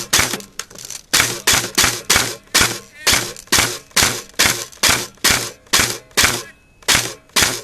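Airsoft gun fired shot after shot at a steady pace of about three sharp cracks a second, with two brief pauses, as suppressing fire to pin down an opponent.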